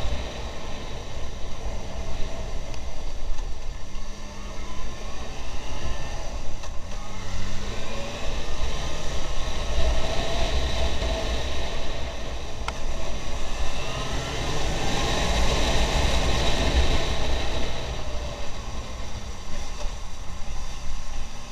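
Motorcycle engine running while riding, its pitch rising and falling several times with the throttle, under heavy wind buffeting on the microphone.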